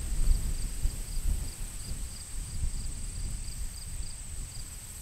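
Wind buffeting the microphone in uneven low gusts, with insects chirping in the background: a regular high chirp about two to three times a second over a steady high buzz.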